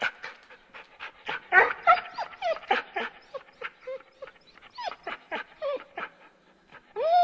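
A dog whimpering and yipping: a quick run of short, high, whining calls, many sliding up or down in pitch.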